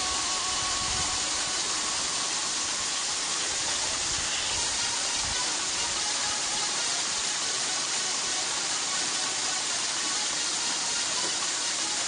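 Waterfall pouring into a pool: a steady rushing hiss.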